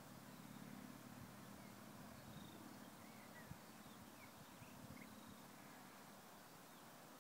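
Near silence: faint open-field ambience with a low steady hum and a few faint, short bird chirps around the middle.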